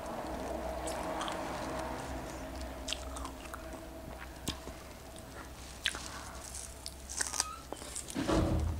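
A person chewing strawberries, with small wet mouth clicks, then biting into another strawberry near the end.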